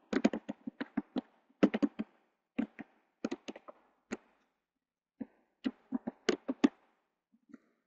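Computer keyboard being typed on: quick, irregular key clicks in short runs with pauses between, dying out in the last second.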